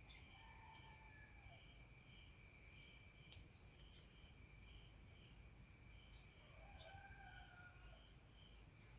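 Faint night ambience of crickets trilling steadily, with a pulsing chirp over a constant high buzz. Twice, about a second in and again near seven seconds, a faint drawn-out tone, sagging slightly in pitch, sounds in the distance.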